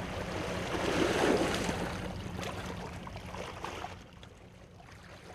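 Waves washing on a rocky shoreline with wind, swelling about a second in and fading out by about four seconds, over a low steady hum.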